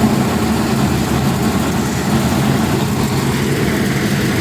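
Diesel engine of a concrete mixer running steadily at constant speed, a low even drone.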